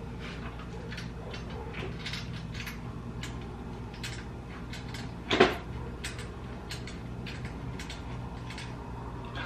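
Scattered light clicks and taps of parts being handled on a car's rear differential and subframe assembly, with one louder clunk about five and a half seconds in, over a steady low hum.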